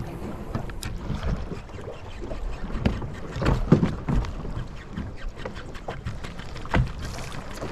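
Water splashing and slapping around a small fishing boat, with irregular knocks and bumps on the hull, loudest a little past the middle, while a hooked dourado is fought to the boat.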